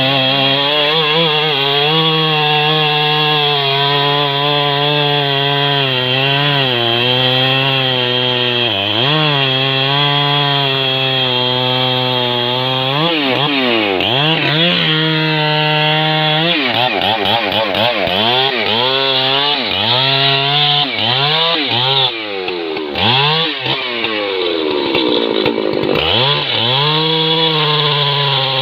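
Husqvarna 3120 XP two-stroke chainsaw cutting through a thick trembesi log, held at a steady high pitch under load for the first half. After that the revs rise and fall repeatedly, dropping back a few times in the latter part before climbing again near the end.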